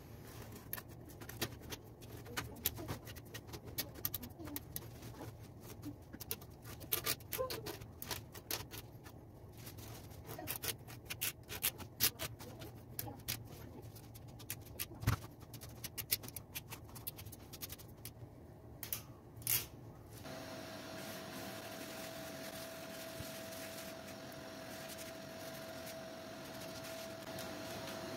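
Small scrapes and clicks of a thin stick picking dust out of the slats of a plastic ventilation grille. About twenty seconds in, these give way abruptly to the steady rush of a tap running, rinsing the grille.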